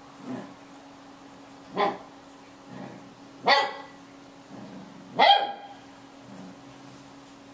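Lhasa Apso barking in play at the other dog: a faint bark near the start, then three sharp barks about a second and a half apart, the last one the loudest, with softer short sounds between them.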